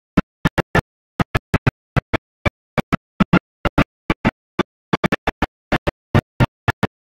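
Broken-up audio: very short snippets of sound, about four a second at uneven spacing, each separated by dead silence, the pattern of a recording with dropouts.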